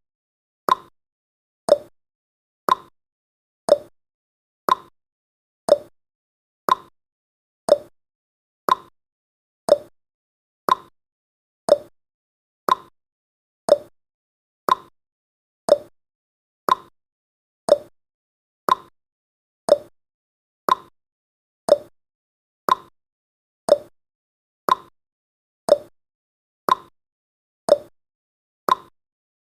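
Clock-tick sound effect of a countdown timer: short, sharp ticks at an even rate of one per second.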